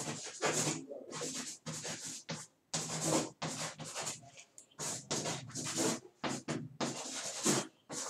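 Chalk scratching on a blackboard as a sentence is handwritten: a string of short scratchy strokes, about two a second, with brief pauses between words.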